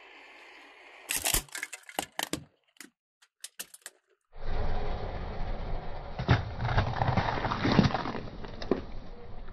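A car tyre crushes a plastic toy stand mixer: a quick run of sharp cracks as the plastic snaps, then a few small clicks. Then steady car and tyre noise with a few sharp cracks as the tyre bursts a watermelon and snaps a bundle of sparklers stuck in it.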